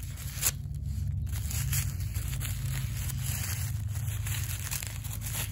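Blue tissue paper crinkling and tearing as it is pulled open around a small wrapped item, with one sharper crackle about half a second in. A steady low hum runs underneath.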